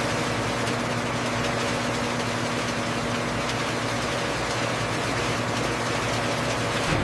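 Steady hum of factory processing machinery, an even mechanical drone with a couple of steady tones running under it.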